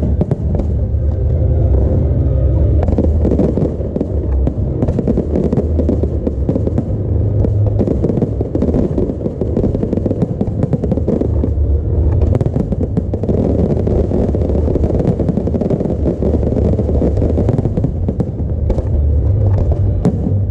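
Fireworks display: a dense, continuous barrage of bangs and crackling over a deep rumble.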